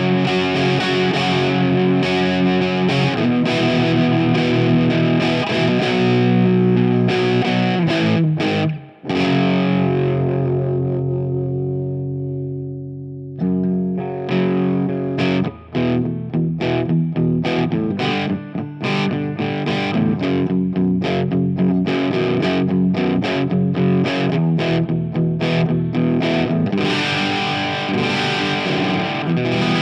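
Stanford Fleetwood CR electric guitar played through distortion with effects: chord riffs, a short stop, then a chord left ringing and slowly fading. After that it moves into rhythmic, chopped chord playing.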